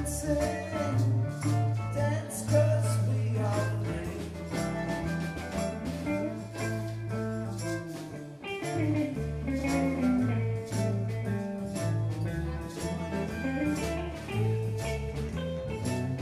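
Live band playing reggae on electric guitars, drums and fiddle, with a steady, heavy low end.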